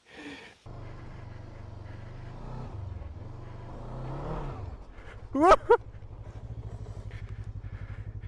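Hunter Maverick 500 motorcycle engine pulling up a loose black lava slope, its revs rising and then dropping away about four and a half seconds in as the bike goes down. The rider gives a short rising cry. The engine is then left idling with an even pulsing beat.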